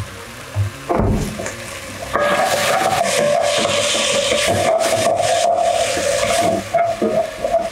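Wooden spatula scraping and stirring chopped tomatoes and onions frying in oil in a non-stick pot: a knock about a second in, then a steady rasping scrape that breaks up into shorter strokes near the end.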